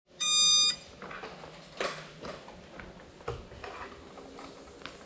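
One electronic beep lasting about half a second at the start, followed by a few faint scattered knocks and clicks.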